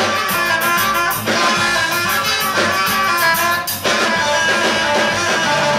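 Live rock band playing loud, with electric guitar over a drum kit and cymbals keeping a steady beat.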